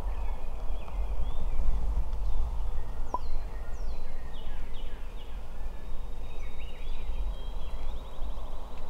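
Songbirds chirping in the woods, with quick falling whistles a few seconds in and a rapid trill near the end, over a steady low rumble. One brief click sounds about three seconds in.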